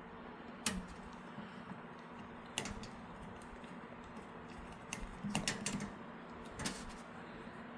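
A few light clicks and taps of small metal parts being handled: a motherboard standoff and a screwdriver adapter being fitted and set against the PC case. There is a short run of rattling clicks about five seconds in.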